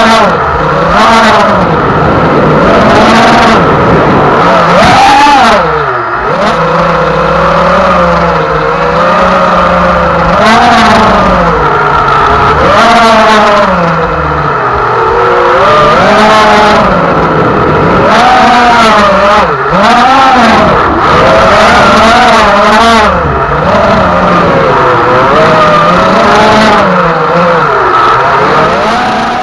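Radio-controlled speedboat's motor running at speed, its pitch rising and falling again and again as the throttle opens and closes through turns.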